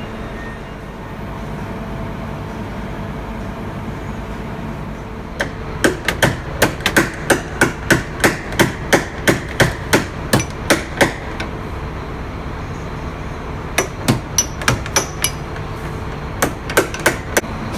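Hammer beating out the crash-bent entry door frame of a Marcopolo Viaggio 1050 bus, straightening the dents. A fast, even run of sharp metallic blows, about three a second, starts about five seconds in. Two shorter runs of blows come near the end.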